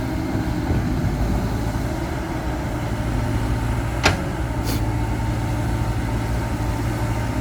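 Diesel engine idling steadily, with a sharp click about four seconds in and a fainter one just after.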